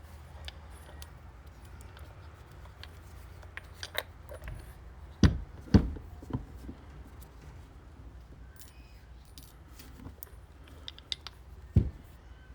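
Small steel ball bearings clicking and tinkling as they are fed into the piston and worm gear of a Saginaw recirculating-ball power steering box. Three heavier metal knocks about 5 s, 6 s and 12 s in are the loudest sounds.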